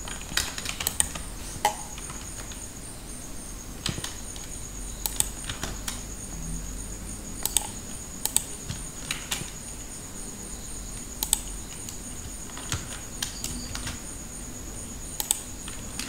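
Irregular computer keyboard and mouse clicks, a sharp click every second or so, some in quick pairs.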